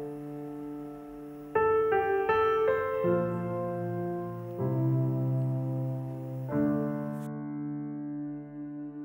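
Slow, gentle piano music: sustained chords that change every second or two, with a fuller chord coming in about a second and a half in.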